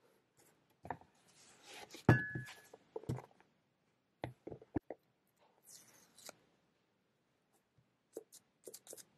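Hardcover sketchbooks handled on a desk: pages and covers rustling and sliding, with scattered taps and a thud about two seconds in, then a run of light taps near the end.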